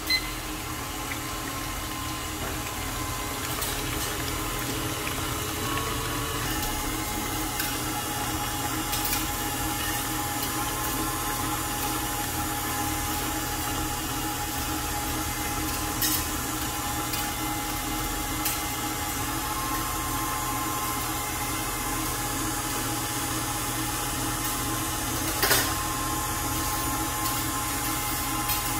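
KitchenAid Artisan stand mixer running steadily, its wire whisk beating frothy egg whites in the stainless steel bowl, with a few sharp clicks along the way.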